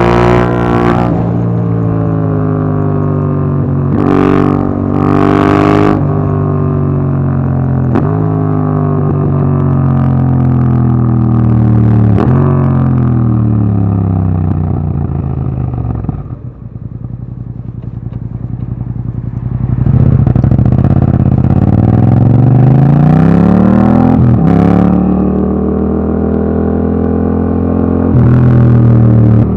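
Yamaha MT-07 parallel-twin engine through an Akrapovic Racing Line exhaust, pulling through the gears with revs rising and dropping at each shift. Around the middle it eases off to low revs and goes quieter, then revs climb hard again.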